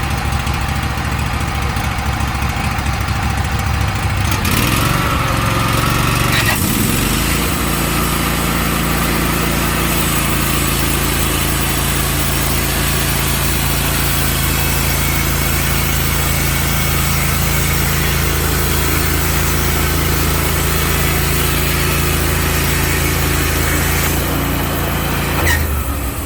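Wood-Mizer band sawmill's engine running. About five seconds in it is throttled up and the band blade goes through a log in one steady cut, ending near the end with a short bump as the sound drops away.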